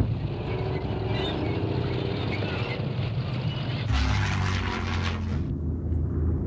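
A mechanical rumble, then from about four seconds in the steady drone of a piston-engined aircraft's engines as it flies low overhead, fuller for a second and a half, then duller.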